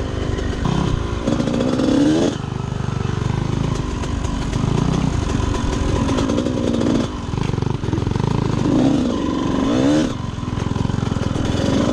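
Honda CR125 125cc two-stroke motocross bike being ridden, its engine revs rising and falling. There are two long climbs in pitch, one about a second in and one near the end, each cut off sharply as the throttle closes.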